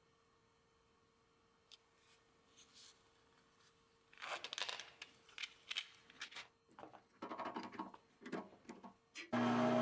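Hands handling a small plastic case of carbide micro drill bits: a few faint clicks, then irregular short bursts of rustling, clicking and scraping as the lid is opened and a bit is taken out. Near the end a loud steady hum starts suddenly.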